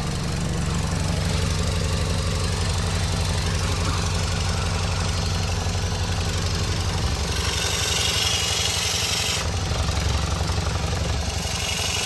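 BMW E46 engine idling steadily, heard from under the car at the exhaust, with an even, rapid pulsing as exhaust escapes through a leak at a patched sleeve joint in the pipe. A brighter hiss comes in twice in the second half.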